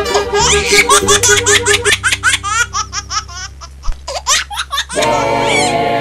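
Cartoon baby laughing and giggling in a rapid run of short laughs over background music; the laughter stops about five seconds in.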